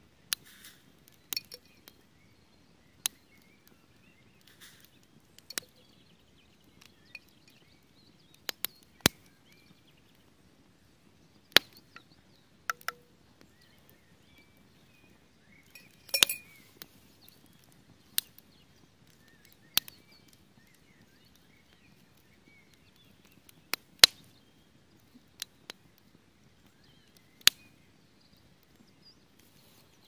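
Pine-log campfire crackling: sharp, irregular pops every second or two over a low steady rush of burning wood. A few light clinks of a spoon in a steel cup near the start.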